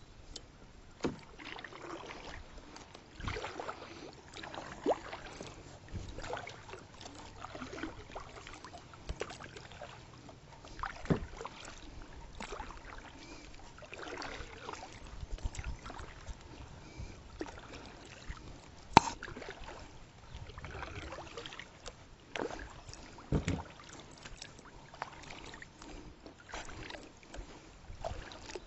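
Kayak paddling: the paddle blades dip and pull through the water with a soft swish every second or two. Several sharp knocks fall among the strokes, the loudest a little after two-thirds of the way through.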